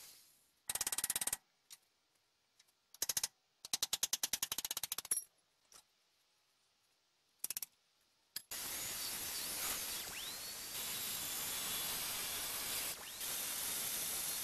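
A pneumatic tool working on the truck frame in several short bursts of rapid strikes in the first half, then a steady loud hiss from just past the middle.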